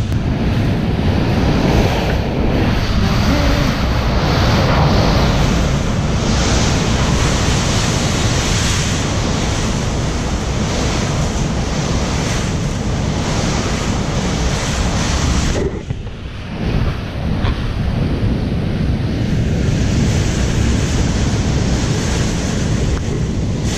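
Hurricane winds battering a house, a loud steady rushing noise heard from inside, briefly dropping about two-thirds of the way through.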